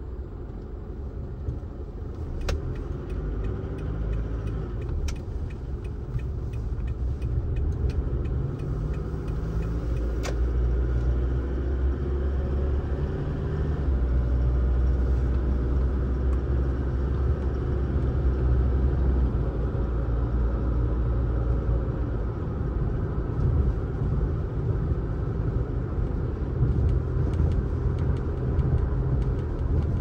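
A car driving on a road: steady low engine and road rumble that grows louder over the first dozen seconds, then holds.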